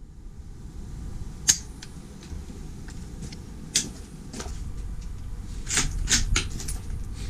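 A series of sharp clicks and knocks, loudest about a second and a half in and a cluster around six seconds, over a low rumble.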